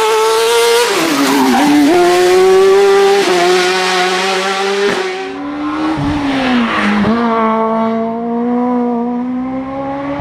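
Race car engine running hard at high revs, its pitch falling steeply about a second and a half in, with brief cuts near three and five seconds as gears change, then slowly climbing again after about six seconds.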